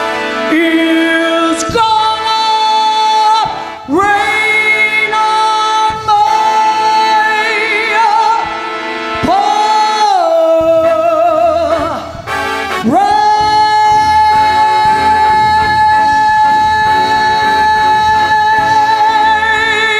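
Female vocalist belting the closing phrases of a show tune over a live band with keyboard and drums, ending in one long held note from about 13 seconds in.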